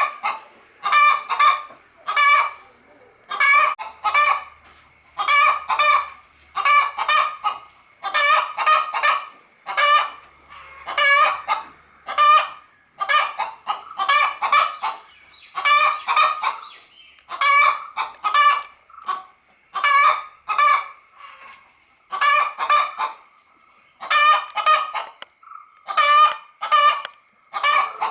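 Hen calling over and over in a regular rhythm: loud clucking calls in pairs or short groups, about every one and a half to two seconds.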